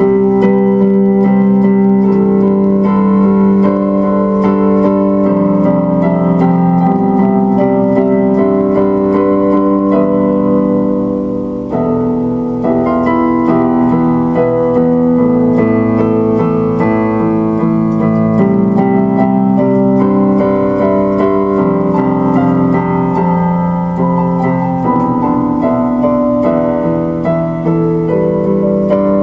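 Solo piano music played on a keyboard: slow, sustained chords and held notes changing every second or two.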